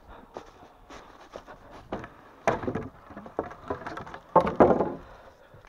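A series of knocks and clattering, loudest in two clusters about two and a half seconds in and again between four and five seconds in.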